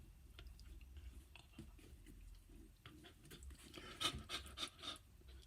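A miniature Australian Shepherd panting faintly, with a run of short clicks about four seconds in.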